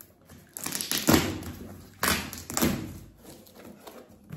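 Cardboard box flaps being pulled open and folded back by hand: a few bursts of scraping and rustling cardboard with dull knocks, the loudest about a second in and again about two seconds in.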